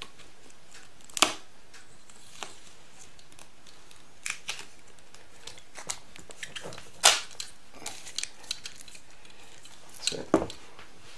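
Grey tape being pulled off the roll and pressed around a pack of two sealed lead-acid batteries: short scattered rips and rustles with a few sharper clicks, the loudest about seven seconds in.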